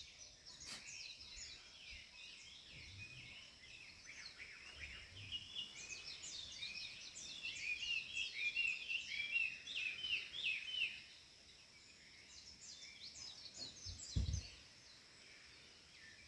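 Several birds singing and chirping together in a morning chorus, with many short overlapping trills that are busiest in the middle. A brief low thump comes near the end.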